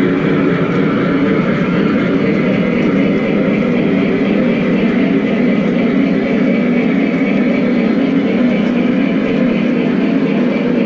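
O gauge model freight train rolling past on its track: a steady rumble and clatter of wheels on rail.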